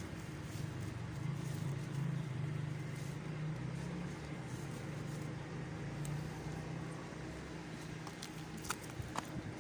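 An engine running steadily with a low hum that slowly fades, followed by a few sharp clicks near the end.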